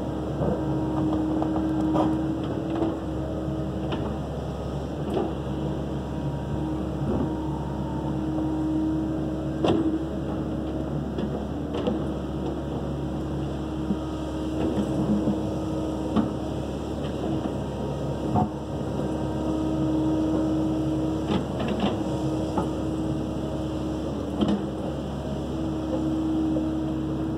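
Kobelco SK135SR compact-radius excavator running steadily on its diesel engine while it works the boom and bucket, with a hydraulic-pump whine that swells for a couple of seconds at a time as the arm moves. Scattered sharp knocks and clanks from the machine and the brush it works.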